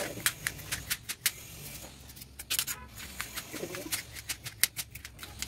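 Irregular sharp taps and knocks, several a second, from construction work on a neighbouring house. A bird calls twice in between, near the start and past halfway.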